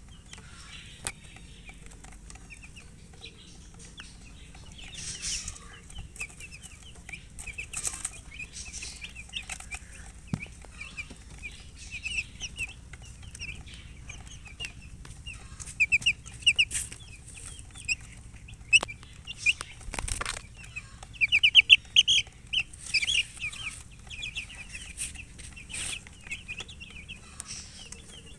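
Baby chicks peeping: many short, high-pitched peeps in rapid runs, growing louder and busier in the second half. A few brief rustling bursts break in among them, the sharpest about twenty seconds in.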